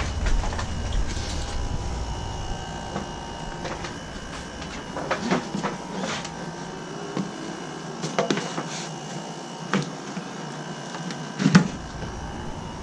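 Scattered knocks and clunks from tools and parts being handled, five or so spread apart, the loudest near the end, over a faint steady hum.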